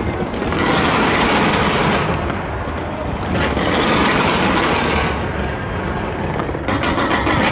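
Fireworks shooting off a skyscraper: a steady rushing roar that swells twice, then a fast run of crackling pops near the end.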